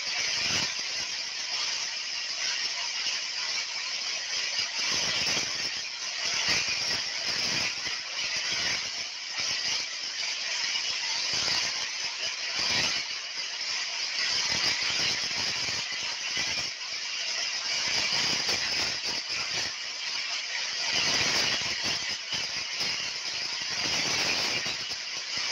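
Heavy rain pouring in a storm, a dense steady hiss that swells and eases with gusts of wind.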